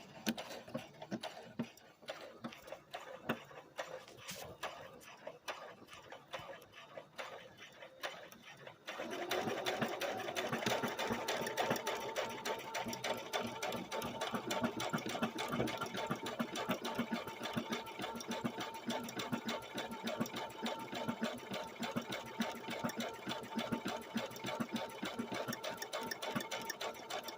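Brother SQ9285 computerized sewing machine stitching: slow, separate stitch clicks for about nine seconds, then it runs steadily at a fast, even stitching rhythm.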